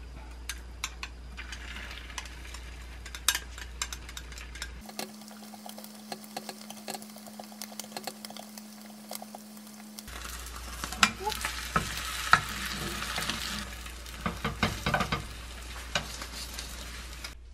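Beaten egg sizzling in an oiled square rolled-omelette pan, with chopsticks tapping and scraping against the pan as the egg is stirred, and then a spatula as it is rolled. The taps are loudest about eleven to twelve seconds in.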